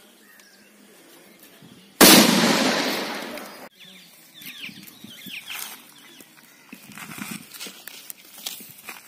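A firecracker going off inside a coconut: one loud bang about two seconds in, its noise dying away over a second and a half before it cuts off suddenly.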